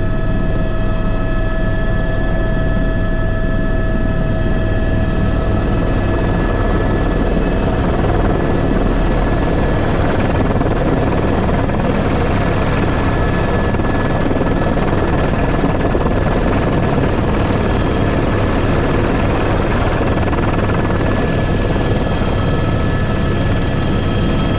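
Airbus H125 (AS350 B3) single-turboshaft helicopter running steadily, heard from the cockpit: a constant low rotor beat under several steady high whining tones from the turbine and gearbox.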